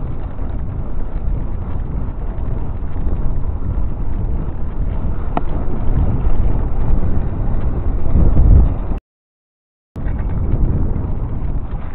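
Wind buffeting the microphone over the rumble of a mountain bike's tyres rolling over brick paving, a loud, irregular low rumble. The sound cuts out completely for about a second near the end, then comes back.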